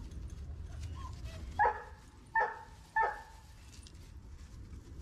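Giant Schnauzer puppy giving three short barks in quick succession, starting about a second and a half in, after a faint brief whine.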